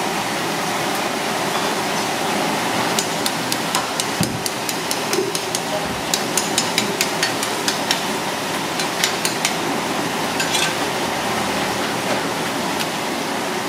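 Rapid, irregular sharp knocks and taps, several a second and thickest through the middle, over a steady background din with a faint constant hum.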